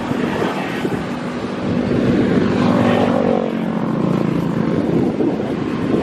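Wind buffeting the microphone, with a distant engine drone that swells about two seconds in and fades near the end.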